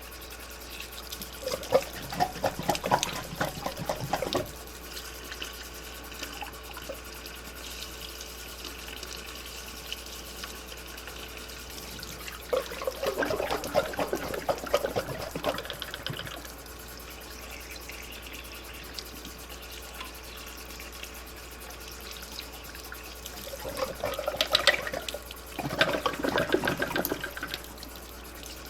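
Sink tap running in three bursts of a few seconds each, with splashes and knocks, as a furnace part is rinsed out under it.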